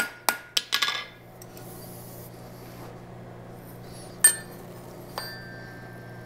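Hand hammer striking a red-hot steel horseshoe on the anvil, four or five quick blows in the first second. About four seconds in, a sharp metallic clink as the hammer is set down on the anvil, then a lighter clink a second later that rings on, over a steady low hum.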